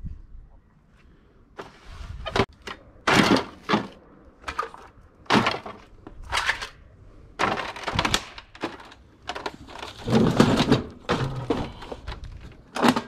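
Junk being shifted and rummaged through by hand: a dozen or so irregular knocks, thunks and scraping clatters of objects moved against each other, with longer rattling stretches late on.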